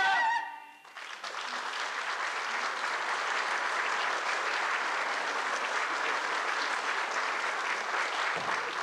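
A held, wavering sung note ends, then an audience applauds, a dense steady clapping that starts about a second in and carries on.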